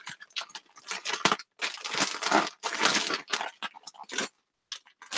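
Plastic poly mailer crinkling and crackling in irregular bursts as it is handled; super crinkly. It stops about four seconds in, leaving a few light clicks.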